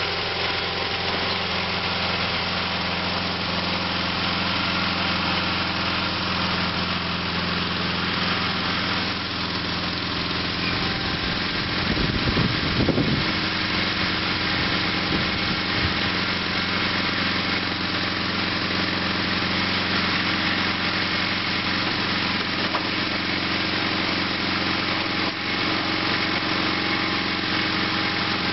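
Sears SS/16 garden tractor's Onan twin-cylinder engine running steadily while the tractor grades dirt with its front dozer blade. A brief low rumble comes about twelve seconds in.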